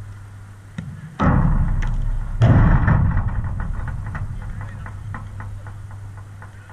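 Heavy thuds against the metal-mesh fence of a five-a-side pitch close to the microphone, most likely a football striking it: a small knock, then two big thuds about a second apart, the second the loudest. The fence rattles after each and fades away over a few seconds.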